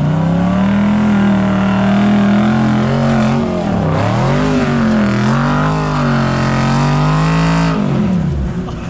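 Off-road truck engine revved hard under load while towing a stuck vehicle out of deep sand, its wheels spinning and throwing sand. The revs climb at the start, dip and recover near the middle, and fall away shortly before the end.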